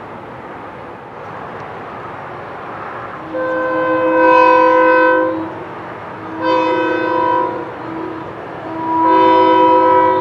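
Horn of a SMART diesel multiple unit train sounding three blasts: long, short, then long. Each blast is a multi-note chord.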